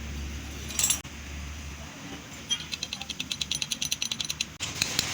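Metal hand tools and small engine parts clinking during hand work on a motorcycle engine. There is one sharp clack just under a second in, then a quick run of evenly spaced metallic ticks from about two and a half seconds.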